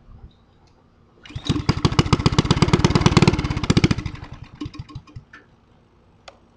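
Honda go-kart engine catching about a second in and running with rapid, even firing pulses for a few seconds, then sputtering with scattered firings and dying out.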